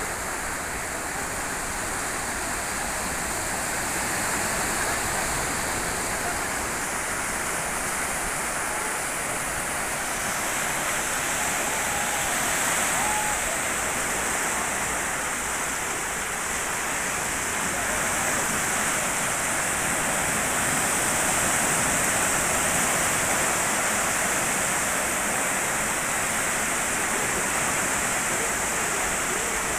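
Small waves breaking and washing up a sandy beach, a steady rushing surf that swells gently louder and softer.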